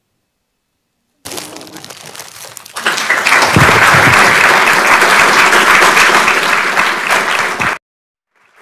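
Audience applause, starting about a second in, swelling to loud about three seconds in, then cutting off suddenly near the end.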